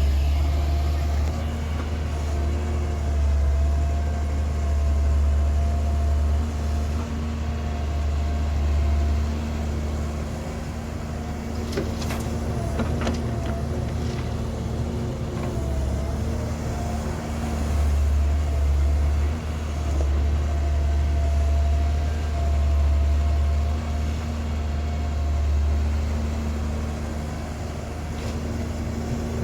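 Heavy diesel engine of an excavator or truck running under varying load, its drone swelling and easing every few seconds, with a steady whine above it. A few sharp knocks about halfway through.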